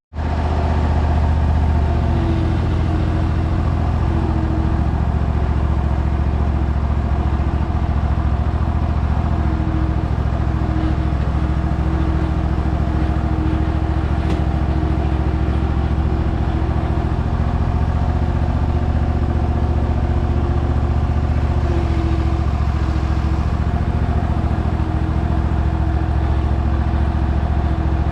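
Air compressor running steadily, its motor starting abruptly and then holding a constant low hum.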